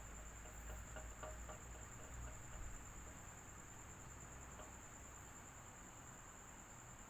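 Electric fan running steadily: a faint, even whoosh with a constant high-pitched whine. A few faint ticks sound in the first few seconds.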